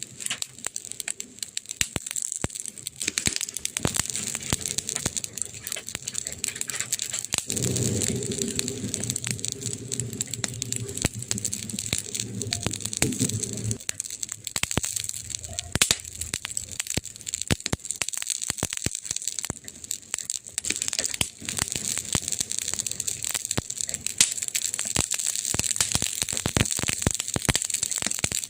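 Campfire burning, with a dense run of sharp crackles and pops over a soft hiss. A low, steady hum joins for about six seconds in the middle and cuts off suddenly.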